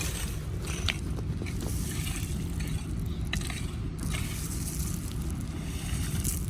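Heavy earth-moving machinery, an excavator at a mine site, running with a steady low rumble, with intermittent scraping and crunching of rock and short clicks.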